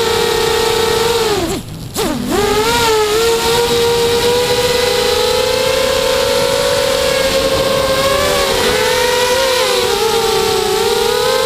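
FPV quadcopter's electric motors and propellers whining steadily. About a second and a half in, the pitch falls steeply as the throttle drops, then shoots back up within about half a second. After that it holds steady with small wavers in pitch.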